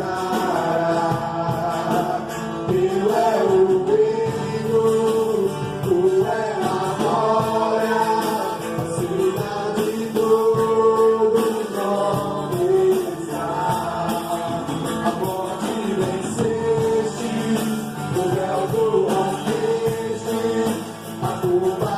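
Gospel pagode band playing, with a sung melody line over percussion.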